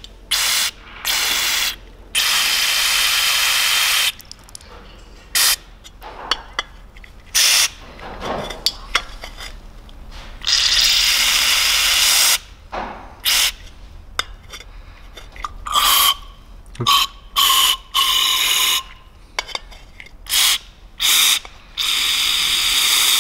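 Aerosol brake cleaner sprayed in repeated hissing bursts into the oil passages of a BMW S54 VANOS valve body to flush out debris. There are many short squirts and three longer blasts of about two seconds, and a few of the later squirts carry a faint whistle.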